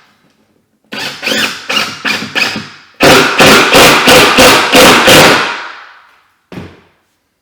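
Power driver sinking a long screw through a door hinge into the wood frame behind the jamb, in two runs of loud pulsing strokes at about three a second, the second run much louder, fading out about a second before a single short click near the end.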